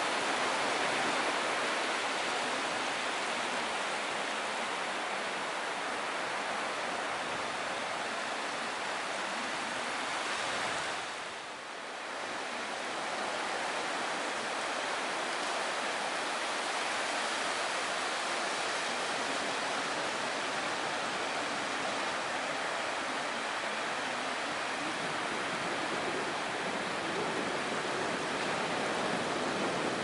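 Small sea waves breaking and washing up a sandy beach, a steady surf hiss that briefly drops away about eleven seconds in.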